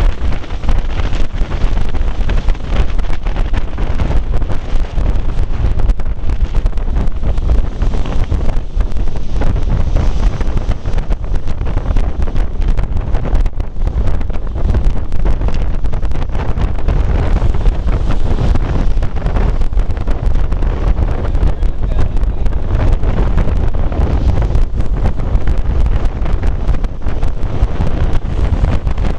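Strong wind buffeting the microphone in a loud, steady low rumble, with ocean waves crashing against coral rock underneath it.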